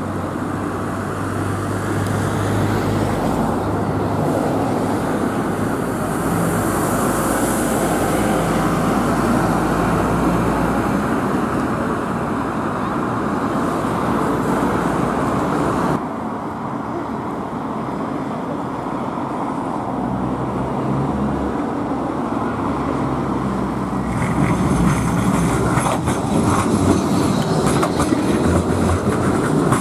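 Street traffic with the diesel engine of a Volvo double-decker bus running as it approaches. Then a modern articulated electric tram runs past close by, its wheels clattering over the rails with rapid clicks from about three-quarters of the way through.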